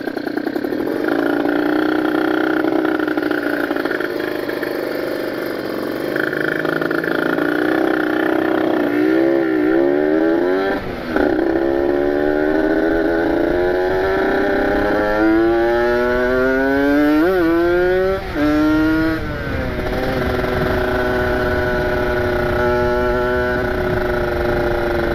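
Ported Kawasaki Ninja 150 RR two-stroke single-cylinder engine under way, revving up and easing off through the gears: its pitch climbs and drops several times in the middle, then holds steady near the end.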